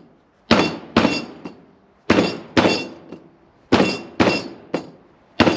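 Rubber mallet striking a spring adjuster collar to drive it down the body of a Can-Am Spyder's stock KYB shock absorber. The strikes come in pairs about every second and a half, each with a short metallic clink.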